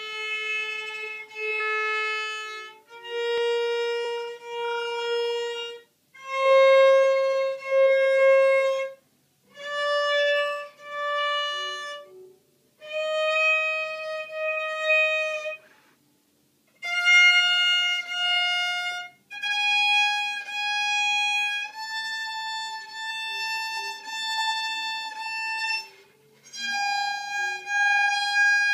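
Violin playing a slow scale: each note is held for two long bow strokes with short breaks between notes, climbing step by step through about an octave, then starting back down near the end.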